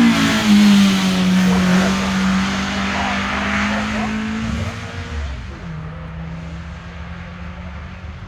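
Hillclimb competition car's engine at high revs, changing up a gear just after the start and pulling away, its sound fading over the last few seconds.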